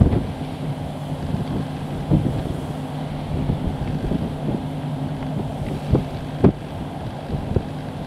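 Claas Lexion 670 combine harvester working in standing barley, a steady engine and threshing drone with a constant hum. Wind buffets the microphone throughout, with a few sharp gusts.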